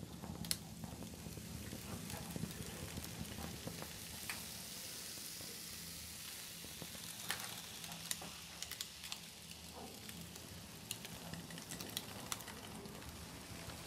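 A sheet of paper burning after being lit at a candle flame: a steady crackle with scattered sharp pops, over a low steady hum.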